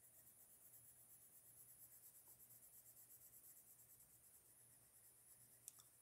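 Faint scratching of a Prismacolor colored pencil shading on paper in quick, even strokes, with a short click near the end.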